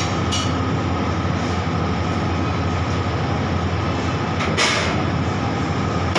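Steady loud mechanical rumbling noise, with a couple of short sharp clicks near the start and a louder one about four and a half seconds in.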